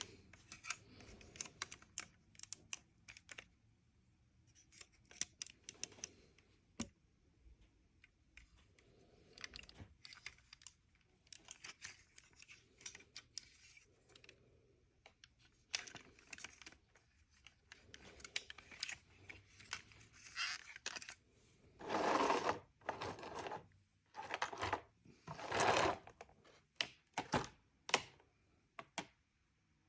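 Hands handling a boxed toy figure and its packaging: scattered light plastic clicks and taps. About two-thirds of the way through come two louder rustling bursts, each about a second long, a few seconds apart.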